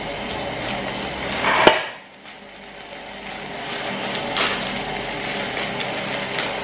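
Steady rush of a table-top gas burner flame under a pot of noodles, with the crinkle and tear of a plastic seasoning sachet being opened. About one and a half seconds in, a rustle builds to one sharp click, and a few small crackles come later on.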